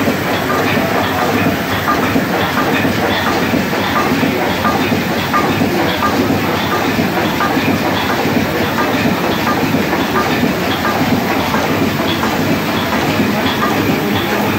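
A 720 hp triple-expansion steam engine of a steam suction dredger running steadily, with a regular light ticking over the constant noise of its turning cranks and rods.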